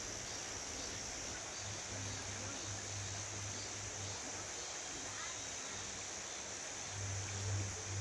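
Summer forest ambience: cicadas and other insects keep up a steady high drone, with a faster high pulsing call repeating about twice a second, over the even rush of a mountain stream. Low rumbles of wind or handling on the microphone come and go and swell near the end.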